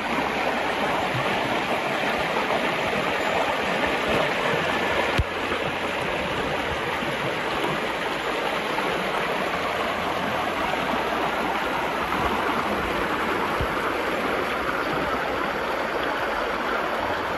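Water rushing over rocks in a waterfall stream, a steady unbroken rush, with a single sharp knock about five seconds in.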